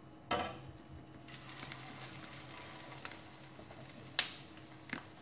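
Egg-coated chicken cutlet going into a frying pan of hot oil, the oil sizzling faintly around it. There is a short loud sound just after the start, then a few short sharp sounds near the end.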